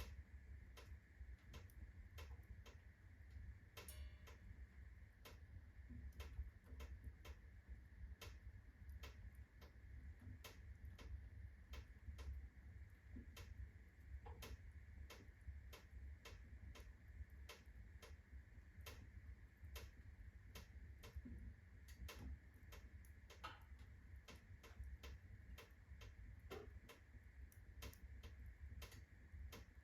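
Birch round logs burning in a fireplace at full blaze: faint, irregular sharp crackles and pops, about one or two a second, over a low steady rumble.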